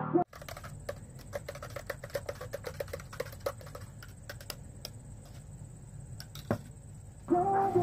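Metal spoon beating quickly inside a steel tumbler: a fast run of light clinks that thins out to a few scattered ones, with one louder clink near the end.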